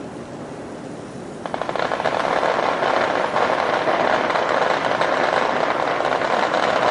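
A long string of firecrackers going off, starting suddenly about one and a half seconds in and keeping up a dense, continuous crackle of rapid bangs.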